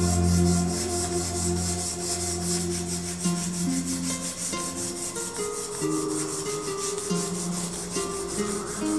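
Hand sanding an 80CrV2 steel knife blade with an abrasive block: a steady, fast back-and-forth rasping hiss from the strokes.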